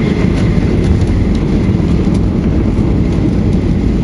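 Cabin noise of a Boeing 737-800 on its landing roll down the runway: a loud, steady rumble with a few faint rattles, as its wing spoilers stand raised.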